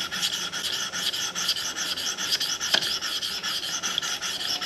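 600-grit sharpening stone on a KME guided knife sharpener rasping back and forth across a knife's bevel in quick, even strokes, with one sharper tick a little past halfway. The steady scraping is the stone grinding the edge and chasing the burr from one side to the other.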